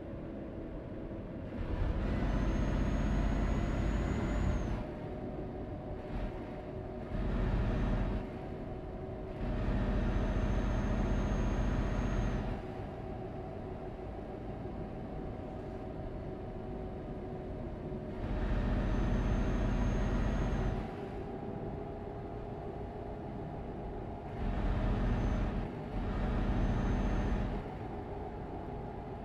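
Road vehicle driving: a steady engine drone, with six louder rumbling stretches of one to three seconds, several of them carrying a faint high whine.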